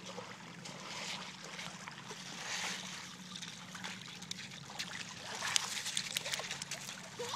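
Shallow water splashing and trickling at a pebbly shoreline as a dog wades in it. A run of small splashes and clicks comes about five seconds in.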